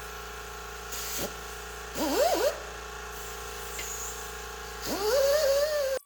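A power tool with a wire wheel, used to clean an engine block, is spun up several times, its pitch rising quickly each time and then wavering under load. A steady hum runs underneath.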